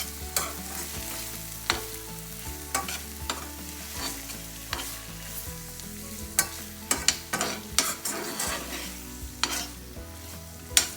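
A cooking utensil stirring onions, tomatoes, button mushrooms and herbs frying in olive oil in a pan, with irregular scrapes and knocks against the pan over a steady sizzle. The strokes come more often in the second half.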